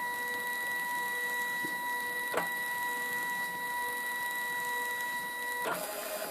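Zebra ZM400 thermal label printer running its media calibration: the feed motor advances the labels with a steady whine and hiss. There is a single click a little over two seconds in, and the feed stops near the end, signalling that calibration is complete.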